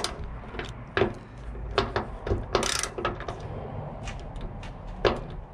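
Socket ratchet tightening the bolts of a steel light bracket on a hood hinge, clicking in short, irregular strokes, with a longer rasp about two and a half seconds in.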